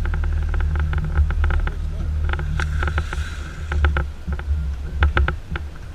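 Steady low rumble with many irregular clicks and knocks, the sound of jacket fabric and gear rubbing against a body-worn camera.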